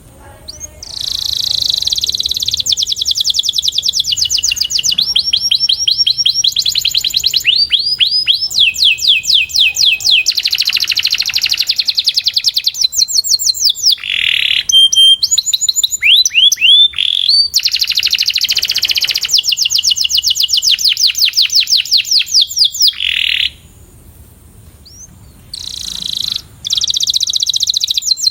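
Male domestic canary singing a long song of fast trills, each a rapid run of repeated high notes, switching to a new trill every second or two, with a break of about two seconds near the end.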